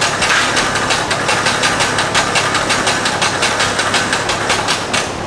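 A light aircraft's piston engine running steadily, with an even, rapid pulsing.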